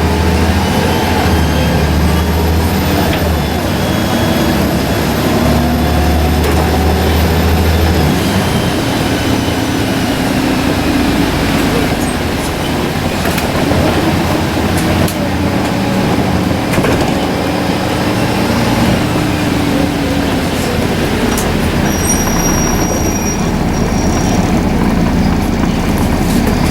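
Volvo B7RLE single-deck bus under way: its turbocharged diesel engine drones, with a thin turbo whistle rising and falling as engine speed changes. A heavy low rumble in the first eight seconds or so eases off after that.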